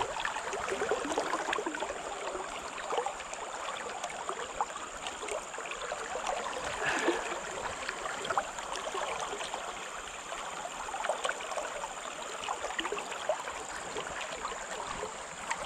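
River current flowing and rippling close by, a steady wash of water with small scattered splashes and ticks.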